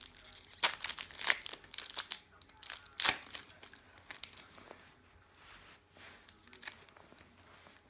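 A trading-card pack's wrapper crinkling and tearing as the cards are handled: a run of sharp crackles and clicks, loudest about three seconds in, thinning to faint rustling in the second half.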